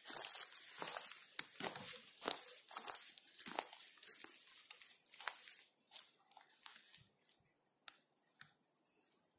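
Footsteps crunching and crackling over dry pine needles and twigs on the forest floor, about two steps a second, growing sparser and fainter after about five seconds.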